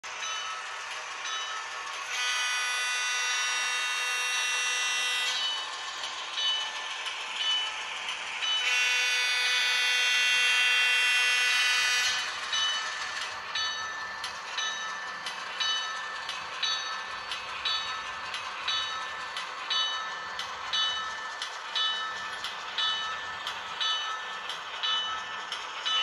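Sound-equipped model diesel switcher locomotive: two long horn blasts of about three seconds each, then its bell ringing steadily, about one and a half strikes a second, over the running diesel engine sound.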